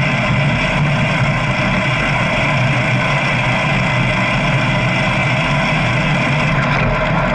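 Motorcycle engine running at a steady, unchanging pitch.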